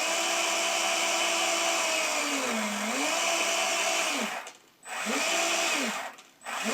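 Brushless motor of an electric BB-feed magazine whining as it drives the feed gears. It spins up, dips in pitch and comes back up as its speed is changed, then stops about four seconds in. It runs again briefly, and starts once more near the end.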